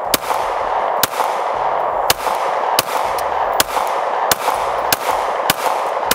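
Glock 19 9mm pistol, mounted in a Recover Tactical 20/20 stabilizer brace, fired in about nine evenly paced single shots, roughly three every two seconds.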